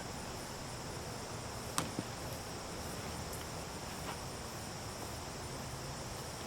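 Steady high-pitched drone of insects chirring, with one sharp click a little under two seconds in.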